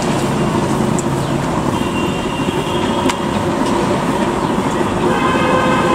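Steady road traffic noise from vehicles running along a busy street, with a short pitched tone about five seconds in.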